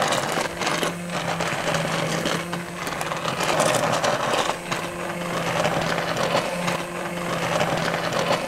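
A 300-watt electric immersion (stick) blender running steadily in a pot of soup, its blades puréeing the liquid. Its motor hum rises and dips a little as it is moved through the pot.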